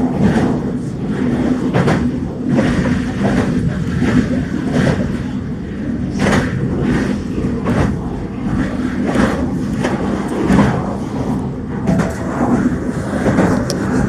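Meitetsu Seto Line electric train running, heard from inside the passenger car: a steady low rumble from the running gear with irregular knocks and rattles throughout.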